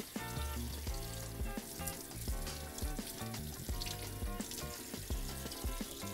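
Kitchen faucet running, its stream splashing over hands and a fish fillet as it is rinsed, under background music with a steady beat.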